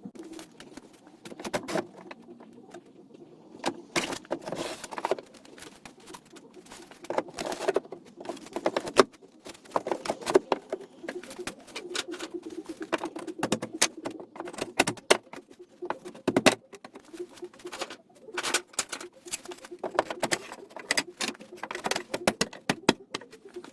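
Irregular knocks, taps and clatter of hand work on wooden shelving, some sharp and loud, over a low steady tone.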